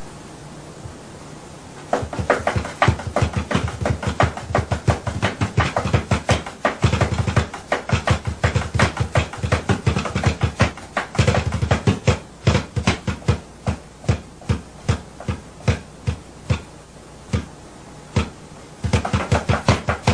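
A fast, irregular series of sharp taps, several a second, starting about two seconds in and running in spells, over a low steady hum.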